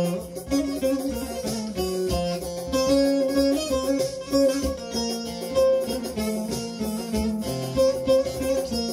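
Bağlama (long-necked Turkish saz) plucking an instrumental melody between sung verses, its notes changing every fraction of a second over a steady low held tone.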